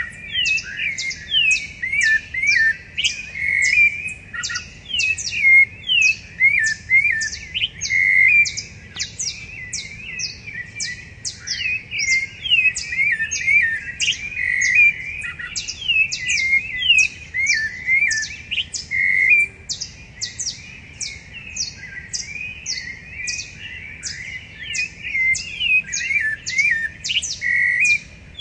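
Several rufous-bellied thrushes singing at once: overlapping phrases of whistled notes that slide up and down. Above them runs a rapid series of short, high notes, about two a second.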